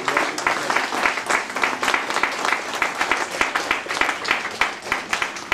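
Audience applauding, dense hand clapping.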